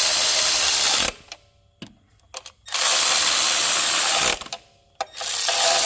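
Cordless power driver running in three bursts of about one and a half seconds each, with short pauses between, turning the mounting bolts of a car's engine computer during its replacement.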